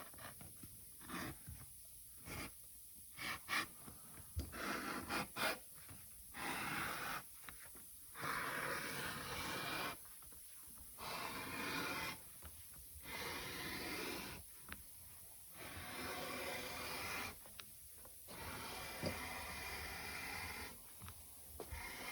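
Leather handwork: a series of scraping or rubbing strokes, each lasting about one to two seconds with short pauses between, preceded by a few sharp clicks.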